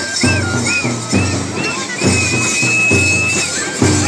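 Traditional festival band music: a drum beaten in a steady rhythm of about two strokes a second under a high wind-instrument melody that slides between short notes and holds one long note midway.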